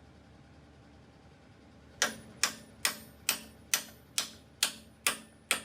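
Hammer blows driving offset caster bushings into the Dana 60 front axle, a tight fit: sharp metallic strikes with a brief ring, evenly spaced a little over two a second, starting about two seconds in.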